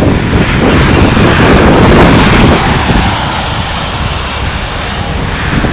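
Distant jet-engine noise from an Airbus A320 rolling out on the runway after touchdown, mixed with wind buffeting the microphone; the noise eases a little about three seconds in.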